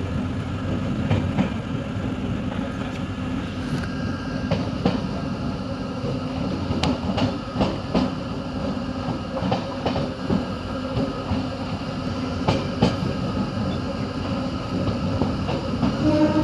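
Passenger train running along the track: a steady rumble with irregular sharp clacks of the wheels over the rail joints.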